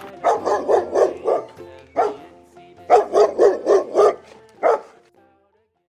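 Dog barking in quick runs: about five barks, a single bark, about five more, then one last bark.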